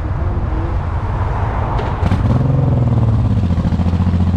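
Motorcycle engine running while riding. Its note turns louder about two seconds in, just after a brief clatter, then drops to a lower steady pitch.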